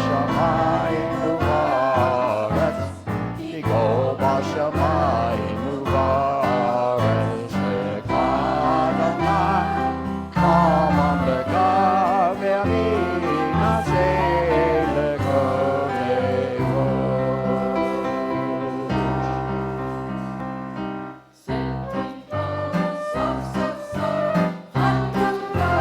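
Religious song with singing over sustained low instrumental notes. The singing stops about two-thirds of the way in, and after a brief gap the instruments go on with short, rhythmic chords.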